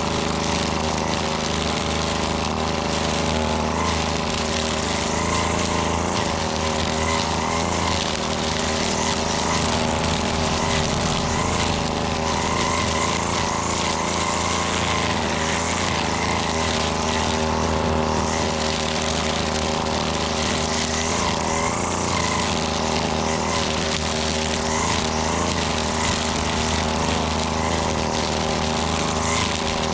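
Two-stroke gas string trimmer running steadily under load while cutting, its engine note wavering slightly as the throttle shifts.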